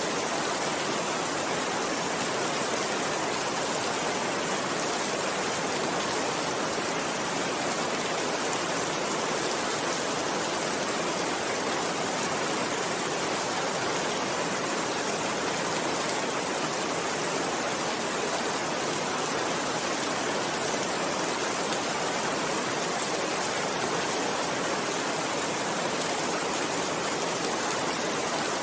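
Steady rainfall: an even, unbroken hiss of many fine drops with no single drops standing out.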